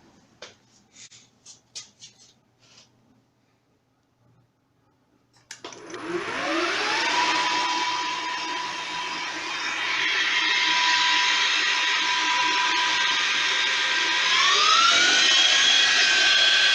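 A few light clicks, then a click and an inverter-driven 12x36 gearhead benchtop lathe starting up: motor and gears run up with a rising whine and settle to a steady speed. About fourteen seconds in the whine rises again as the speed steps up, then holds.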